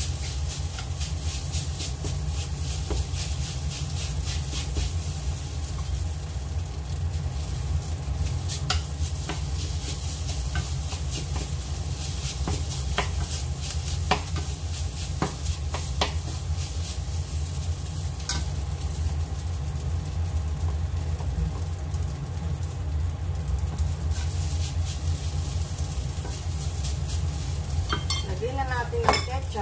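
Wooden spatula stirring and scraping fried rice around a frying pan, with scattered taps of the spatula on the pan and a light sizzle. A steady low hum runs underneath.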